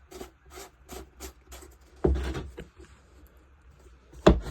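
Plastic fuel cap being screwed onto a leaf blower's fuel tank: a run of light, even clicks, about three a second. A louder knock comes about two seconds in, and a sharp knock near the end.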